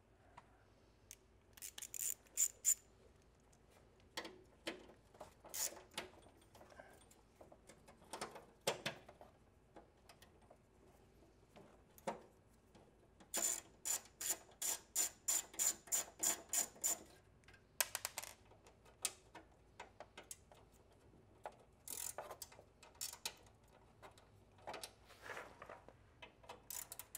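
Hand ratchet undoing small bolts under a drinking fountain's sheet-metal base plate: scattered clicks and scrapes, with a steady run of about four ratchet clicks a second near the middle, then more on-and-off clicking.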